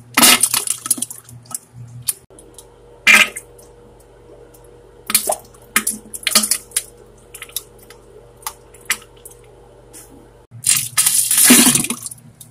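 Wet, spluttering diarrhea fart and splatter sounds in irregular bursts, the longest and loudest near the end.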